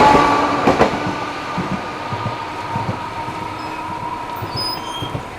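A Toden Arakawa Line tram runs over the level crossing and away, its wheels knocking over the rail joints. Its steady running tone fades as it goes.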